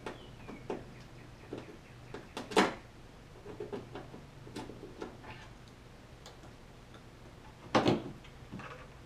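Scattered light clicks and knocks of hands working the plastic tail light housing and its wiring on a Jeep Wrangler JK. Two sharper knocks stand out, one about two and a half seconds in and one near the end.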